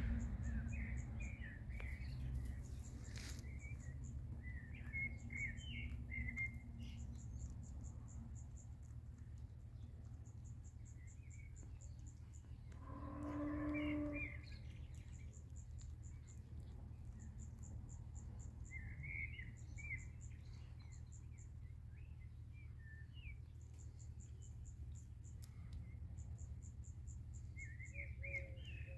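Birds chirping and an insect trilling in short, evenly pulsed bursts over a low steady hum. About halfway through, a cat gives one drawn-out cry lasting about two seconds.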